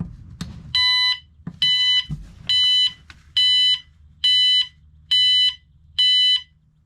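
Newly installed 12-volt RV carbon monoxide detector sounding its alarm during a test-button check. After a click, it gives seven high-pitched beeps, evenly spaced a little under a second apart.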